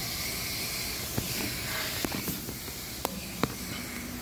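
Garden hose spraying water onto a window air-conditioner unit as it is washed out: a steady hiss of water with a few sharp clicks.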